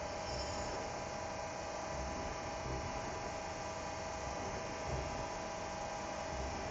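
Steady hum of a CNC machine tool running without cutting, as in a program dry run: several steady mid-range tones over a low rumble and a light hiss.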